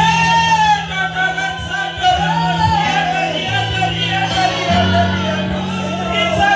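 Gospel singing over instrumental accompaniment, with held bass notes that change every second or so beneath the sung melody.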